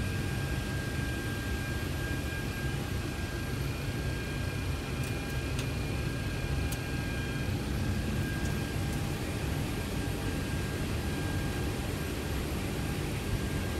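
Steady rumble of a C-17 Globemaster's turbofan engines at low power, heard inside the cockpit, with a thin steady high whine over it.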